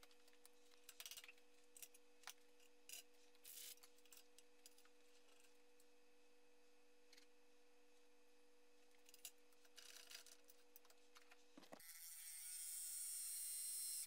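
Faint steady hum of a wood lathe spinning a wood-and-resin vase, with light rubbing and ticking now and then. About twelve seconds in, the hum stops and a louder hiss with a thin whine rises in and holds.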